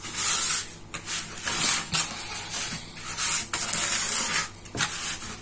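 A hand rubbing a mixture of coarse table salt and nitrite curing salt into a raw pork loin in a plastic bowl, dry-salting the meat for curing. The gritty, scratchy rubbing comes in repeated strokes, with light ticks of salt grains.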